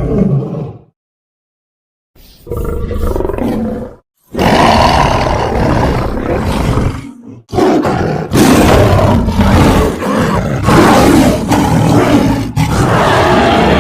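Big-cat-style creature roars voiced for the animated warrior Battle Beast. A roar fades out in the first second, a shorter one comes after a pause, and long loud roars run from about four seconds in, with a brief break midway.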